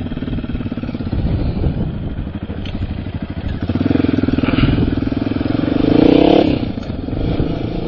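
Sports quad bike's engine running as the quad turns round and pulls away, growing louder and rising in pitch from about four seconds in, then dropping off sharply a little past six seconds.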